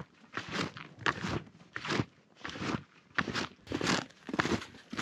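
Steps crunching in cold snow, about two a second in an even walking rhythm.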